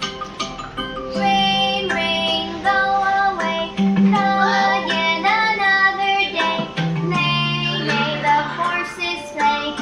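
Children's nursery-rhyme song: a short plucked-instrument lead-in, then a child-like voice singing the melody over a held bass line and light accompaniment from about a second in.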